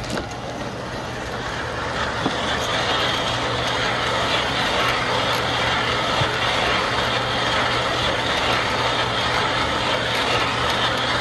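Homemade compost-sifting trommel running: a steady mechanical hum from its drive, with the rattle and rustle of compost tumbling inside the rotating wire-mesh drum.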